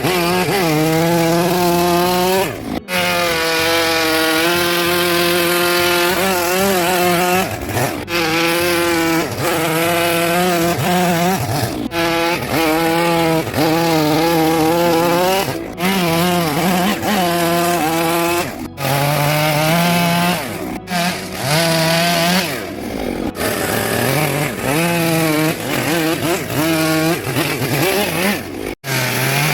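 Chainsaw running and cutting into wood while carving a sculpture, its pitch wavering up and down as it works under load. The sound breaks off abruptly for an instant several times.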